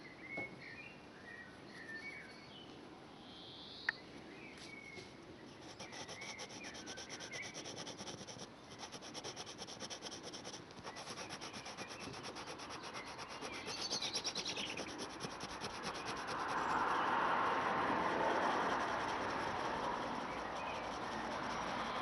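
Pencil point tapping and scratching rapidly on paper, laying down fine stipple shading in a quick, even run of ticks. Birds chirp faintly in the first few seconds, and a broad rushing noise swells up over the last third and is the loudest sound.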